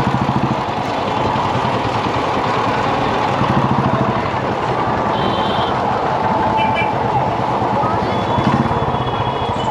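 Motorcycle engine running at low speed in slow, crowded traffic, a steady low pulsing, with a few short high-pitched beeps around the middle and near the end.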